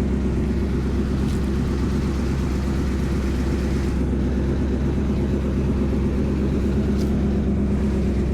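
A car being driven: a steady low engine and road hum.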